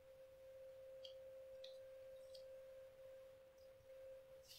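Near silence with a faint, steady single-pitch hum held throughout, and a few faint small ticks.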